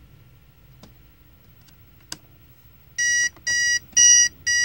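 Spartus Horizon 1173 digital alarm clock: two faint button clicks as its buttons are pressed, then about three seconds in its alarm goes off, a chirping beep repeating about twice a second.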